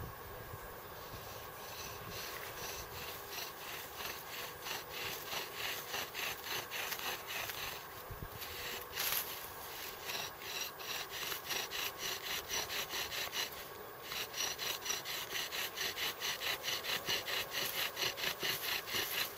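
Bow drill spinning a wooden spindle in a fireboard: a rhythmic rubbing with a high squeak on each back-and-forth stroke of the bow, friction building heat for an ember. After a short break about three quarters of the way through, the strokes come back louder and faster, about three a second.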